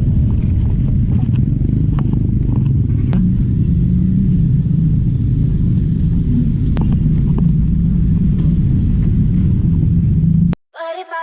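Motorcycle running at riding speed, a steady low engine rumble mixed with wind buffeting on the microphone and a few light clicks and rattles. It cuts off suddenly near the end.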